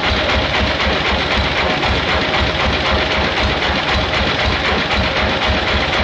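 Sawmill machinery running steadily, a fast low throbbing clatter under dense mechanical noise, with a faint steady whine above it.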